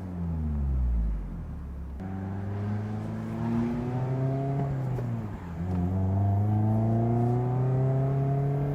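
2024 Mazda MX-5 Miata's 2.0-litre four-cylinder engine with an aftermarket exhaust under way: the revs fall away at first, then it pulls up through a gear, drops in pitch at a shift about five seconds in, and climbs again.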